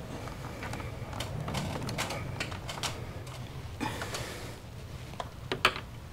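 Irregular clicks and taps of a white plastic conduit pipe and its fitting being handled and pushed together overhead, with a brief scraping rustle about four seconds in and a sharper click near the end.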